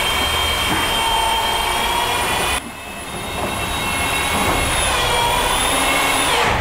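Corded electric drill whining at high speed as it drives self-tapping screws into an aluminium bracket and upright. It stops briefly about two and a half seconds in, starts again and builds, then its pitch drops near the end and it stops.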